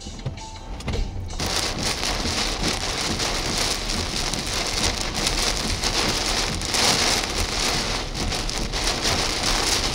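Heavy storm rain pouring down in a thunderstorm, a dense, steady hiss that starts abruptly about a second in.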